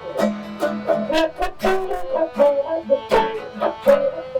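Acoustic country music instrumental break: plucked banjo and guitar notes with a held melody line over them.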